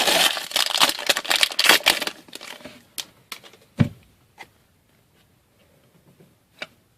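Foil wrapper of a hockey card pack crinkling and tearing as it is opened, for about two and a half seconds. Then come a few separate taps and one duller knock as the cards are handled.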